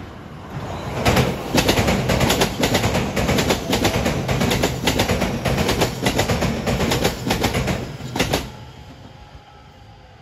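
JR West 227 series six-car electric train passing close, its wheels clattering over the rail joints in a fast run of sharp clicks. The clatter dies away about eight seconds in as the train moves off.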